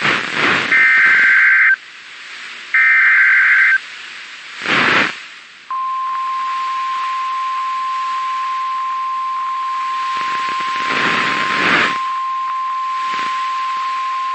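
Emergency Alert System SAME header: two one-second bursts of warbling data tones, then a crackle of static. About six seconds in, the steady 1050 Hz NOAA Weather Radio warning alarm tone starts and holds for about nine seconds, with bursts of static over it. Together they announce a new warning, here a tornado warning.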